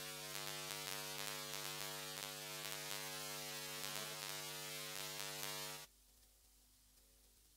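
Angle grinder with a flap disc grinding rust off a steel axe head: a steady motor whine with a grinding hiss, which stops abruptly near the end, leaving a faint low hum.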